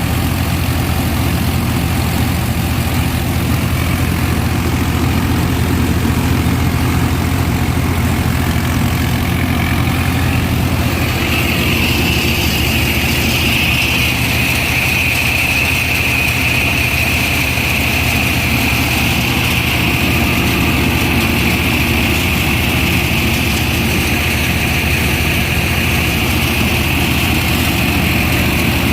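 Tractor-mounted combine harvester running steadily: the Swaraj 963 tractor's diesel engine drives the Gill double-rotor threshing machinery. A high whine from the machinery comes in about a third of the way through and holds.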